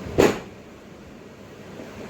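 A single sharp knock, then a low steady background hum.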